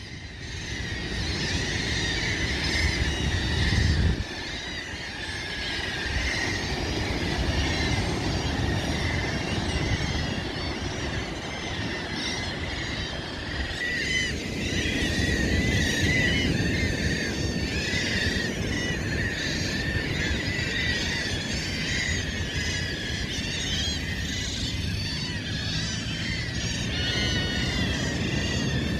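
A large flock of birds calling all at once, a dense, continuous chatter of many short overlapping calls. Under it runs a low rumble that is loudest at the start and drops off suddenly about four seconds in.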